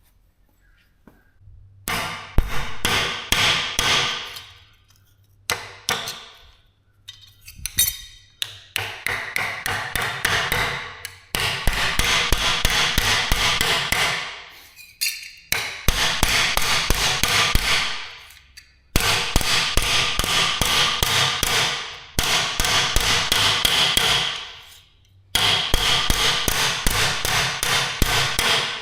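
Hammer beating a bent metal damper flap flat. The blows come in quick runs of many strikes, with short pauses between runs, and the metal rings on each blow.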